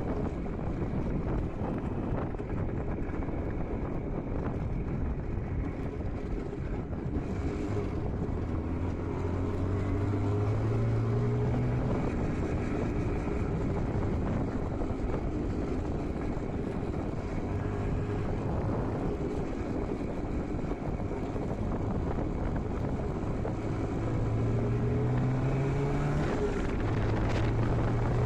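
IZh Jupiter 5 motorcycle's two-stroke twin engine running under way, its pitch rising several times as it accelerates, with wind on the microphone. The owner says this engine knocks and rings.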